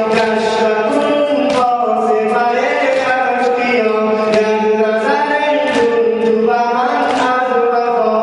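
A man chanting a Shia mourning lament (noha), with repeated sharp slaps of chest-beating (sina zani) in time with the chant.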